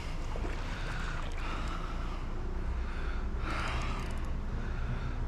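Heavy breathing, swelling in and out about three times, over steady river water and wind rumble on the microphone while a hooked trout is being played.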